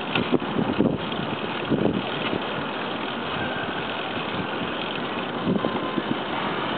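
Steady rushing road and wind noise from riding a Bixi bike-share bicycle, with uneven gusts of wind on the microphone.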